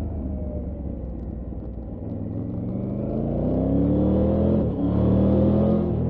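Triumph Tiger 900 Rally Pro's 888 cc three-cylinder engine heard from on the bike under way. It runs evenly at first, then pulls harder and rises in pitch from about two seconds in. A brief break and drop in pitch a little before the end marks a quick upshift, after which it pulls on, louder.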